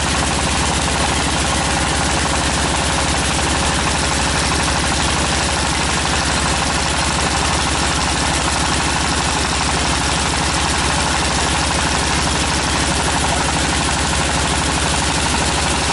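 Tractor-mounted water well drilling rig running: its engine holds a steady note with a fast, even pulsing throughout.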